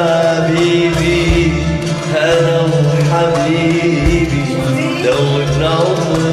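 A man singing an Arabic tarab song into a microphone over a Smule karaoke backing track.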